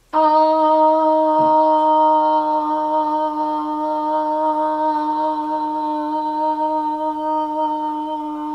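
A young woman's voice holding a sustained "ah" on one steady pitch for as long as she can: a maximum phonation time test. It starts suddenly, does not break, and slowly gets a little quieter.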